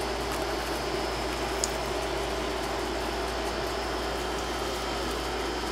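Steady indoor background hum and hiss with no clear event, broken only by one faint click about one and a half seconds in.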